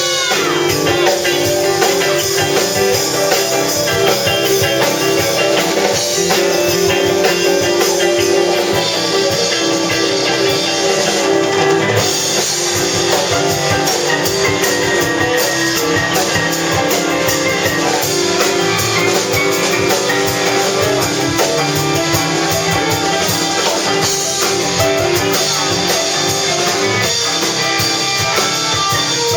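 Band music: guitar over a drum kit with a steady beat.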